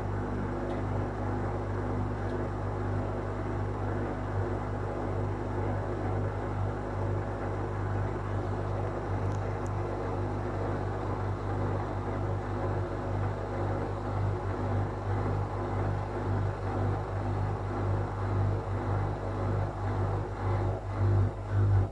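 Whirlpool FL 5065 washing machine's drum spinning at a steady speed, a constant motor hum over the noise of the tub. In the last few seconds the sound grows louder and uneven, pulsing.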